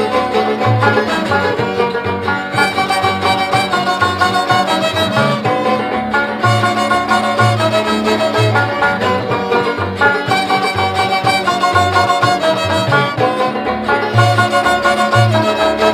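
Background music: string instruments playing a melody over a steady bass line.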